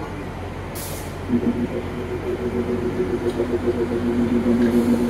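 Narrow-gauge diesel locomotive's engine running as it moves slowly past. There is a short hiss of air just under a second in. From about a second and a half in, the engine's note comes up louder and pulses as it grows.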